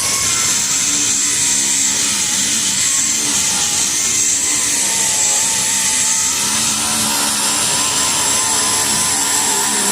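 Angle grinder with a 24-grit grinding disc running steadily against rusted car body metal, a motor whine under a loud gritty hiss.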